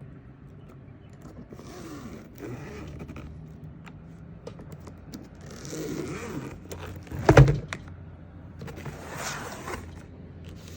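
Unboxing packaging being handled: scraping and rustling in several short stretches, with one sharp knock about seven seconds in.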